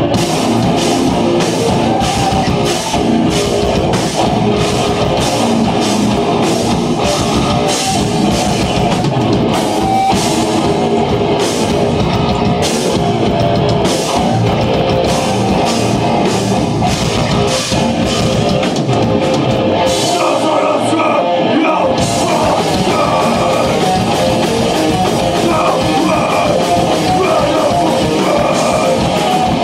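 Live rock band playing loud: electric guitars, bass and a drum kit with steady, driving cymbals. About twenty seconds in, the drums and bass drop out for roughly two seconds, then the full band comes back in.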